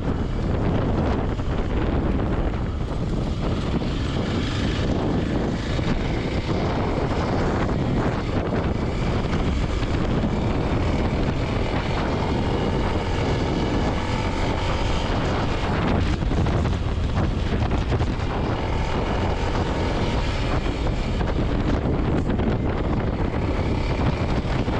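Kawasaki KLX300 dual-sport motorcycle under way, its single-cylinder engine running steadily beneath heavy wind buffeting on the microphone.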